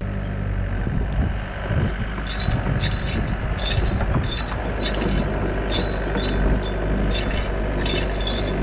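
Excavator diesel engine running steadily as it rolls barbed wire out off a spinner, with repeated short high squeaks over the engine.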